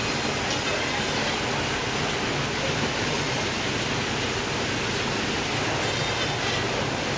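Steady rushing noise with a low hum underneath, typical of a fishing vessel's engine running with water and sea noise around the hull.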